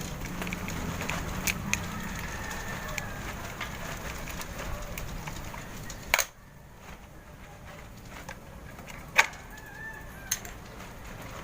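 Scattered sharp clicks and knocks of tools and plastic fan parts being handled as the stand fan's motor housing is opened, over a steady background hiss. The loudest click comes about six seconds in.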